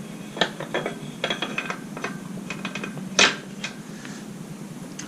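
Metal motorcycle parts and tools clinking and clattering as they are handled and set down: a string of sharp clinks, with one louder, ringing clank a little past halfway.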